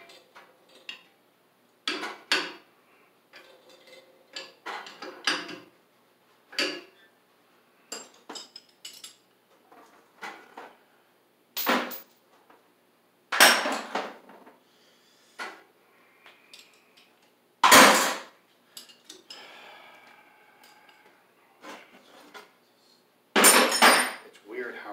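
Irregular metal clinks and knocks of hand tools and fittings against a boiler circulating pump as it is fitted and wired, with sharp louder knocks about halfway, about two-thirds in and near the end, and a brief scrape between them.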